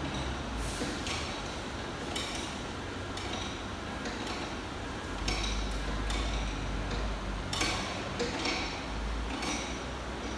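Irregular metallic clinks and taps, roughly one a second, from metal tools and parts being handled during repair work on machinery, over a low rumble that swells twice.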